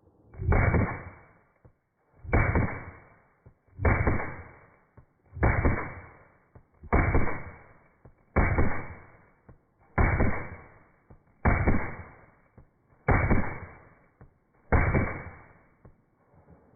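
Pistol shots in rapid fire, slowed down by slow-motion playback: ten deep, drawn-out booms, each a sharp crack that rings off over about a second, coming evenly about every second and a half.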